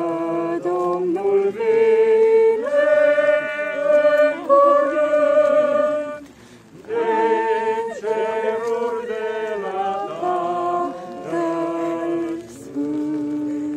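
Voices singing a slow hymn with no instruments heard, moving through long held notes and ending on a sustained final note.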